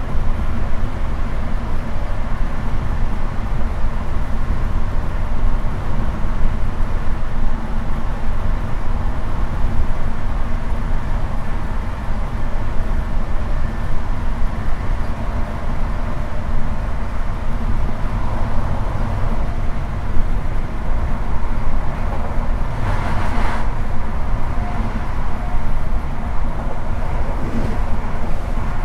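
High Speed Train (InterCity 125) running along the line: a steady, loud rumble of wheels on track and running gear. A brief rush of noise about two thirds of the way through.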